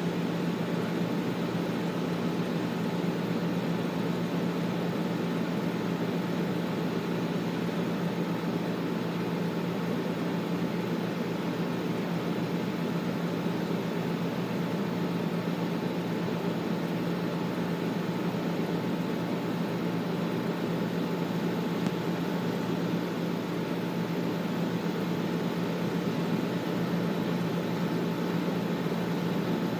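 Air conditioner running steadily: an even fan rush with a constant low hum.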